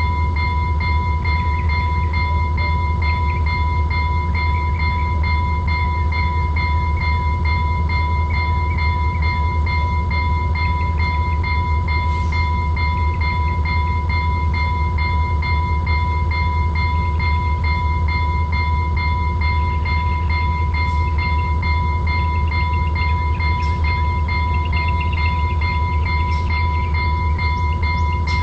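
Transtronic electronic locomotive bell ringing continuously, a steady ringing tone over a constant low hum.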